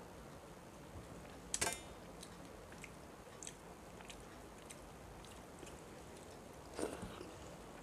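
A person eating rice and fish curry by hand: faint chewing and mouth clicks, with two sharper clicks, one about a second and a half in and one near the end.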